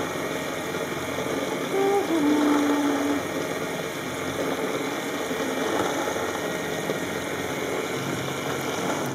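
Toy washing machine running: its small battery motor and drum whirring and rattling steadily during the wash cycle, with a short pitched sound about two seconds in. The noise cuts off suddenly at the end as the machine is switched off.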